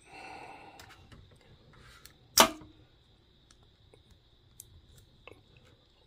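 Plano multi-tool being handled, then one sharp click about two and a half seconds in as its saw blade is pulled out and snaps open, followed by a few faint ticks.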